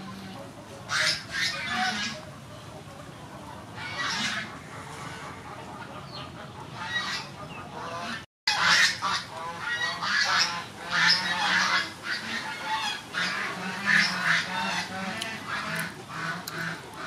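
Fowl honking in short repeated calls, a few scattered at first, then coming thick and fast after a brief gap of silence a little past eight seconds.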